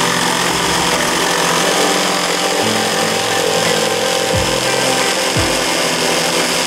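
Budget PRIMERO corded jigsaw sawing through a wooden board, running steadily at its fixed speed, fitted with a replacement blade that cuts somewhat better than the stock one.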